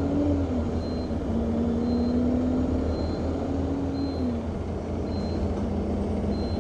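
Enviro200 MMC single-deck bus heard from inside, its engine and drive running with a steady low rumble, the engine note dropping about four seconds in. Over it, a short high-pitched beep repeats about once a second without stopping.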